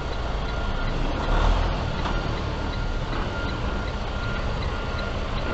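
Truck backup alarm beeping at an even pace while the truck reverses, over the low, steady running of its diesel engine, heard from inside the cab.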